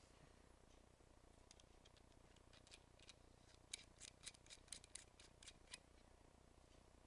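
Faint metallic clicking and ticking of small metal e-cigarette atomizer parts as the atomizer is worked into its metal sleeve. A few scattered clicks come first, then about a dozen quick ticks cluster over the last couple of seconds before stopping.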